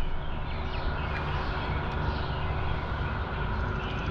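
Steady outdoor background rumble and hiss with a faint steady hum, and a few faint short chirps over it.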